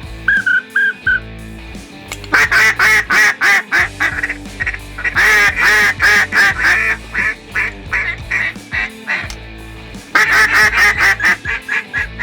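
Duck quacking in quick runs of short calls, three bursts in all, over background music.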